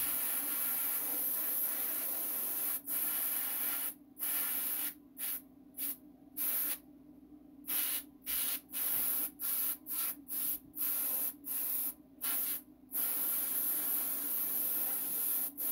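Paint sprayer hissing in triggered bursts: long passes near the start and the end, with a quick run of short bursts in between, over a steady low hum.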